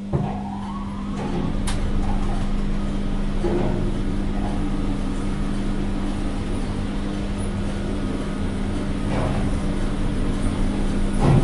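Elevator car in motion: a steady motor hum under a rumble that swells as the car gets under way, with a faint rising whine in the first couple of seconds. A knock comes right at the start, scattered clicks follow, and a louder knock sounds near the end.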